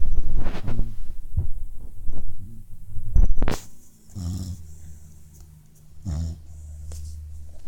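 Snoring: two drawn-out, low snoring breaths about four and six seconds in, after several loud knocks in the first few seconds.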